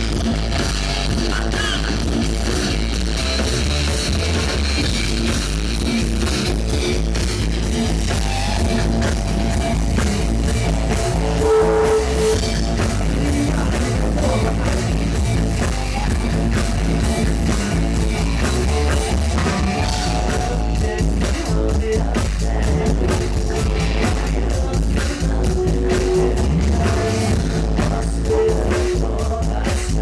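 Live rock band playing: electric guitar, bass and drum kit, with a woman singing held notes over them. The drums and cymbals get busier in the second half.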